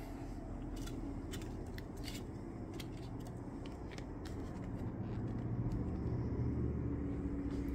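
Faint tabletop handling noises: a scattering of light clicks and rustles, with a low rumble building in the second half.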